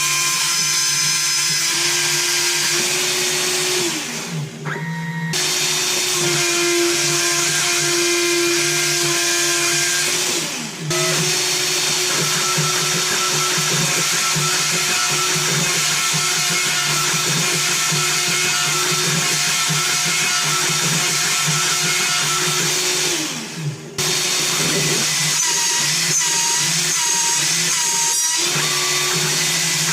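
CNC router spindle milling a wooden keycap: a steady high whine with cutting noise. Three times the whine falls in pitch as the spindle spins down, and the sound breaks off briefly before the spindle runs again.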